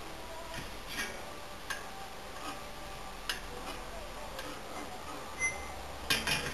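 Faint, scattered light metal ticks and clicks from a bicycle wheel in a truing stand as its spokes are tightened with a spoke wrench, with a few quicker clicks near the end.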